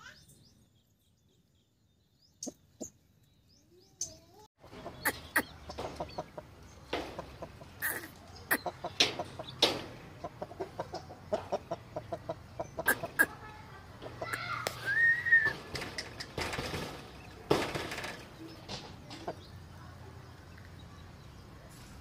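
Aseel chickens in a pen: scattered sharp clicks and rustles with short clucks, and one brief rising-and-falling call about fifteen seconds in. The first four seconds are near silence.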